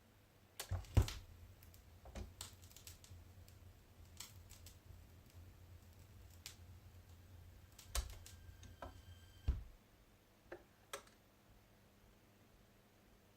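Philips FP 930 (Dual 440) turntable being operated by hand: a sharp click about a second in starts a low hum, small mechanical clicks and knocks follow, and another knock about nine and a half seconds in stops the hum. A couple of softer clicks come after.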